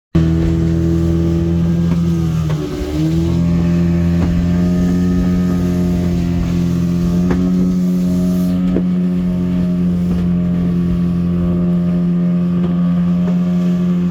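Aircraft engines droning inside the cabin: a loud, steady hum with several held tones that dip briefly in pitch about two and a half seconds in, then recover.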